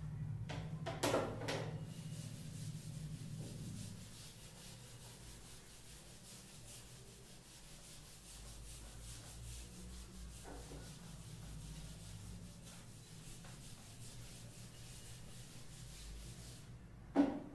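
Whiteboard duster being rubbed back and forth across a whiteboard, erasing marker writing: a faint, steady scrubbing. A short knock about a second in and another near the end.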